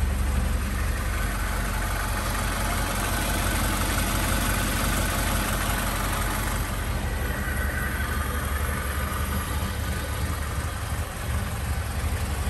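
Alfa Romeo 105-series coupe's twin-cam inline four-cylinder engine idling steadily, warming up after a cold start.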